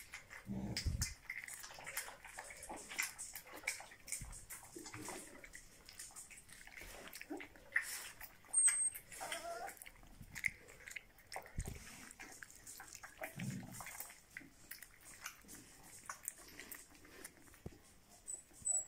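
A litter of small puppies moving about on a hard tiled floor: scattered claw clicks and scuffling, with a few short puppy vocalisations, including a brief rising whine about halfway through.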